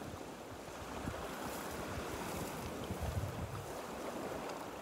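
Small waves washing steadily onto a rocky, pebbly shore, with wind gusting on the microphone.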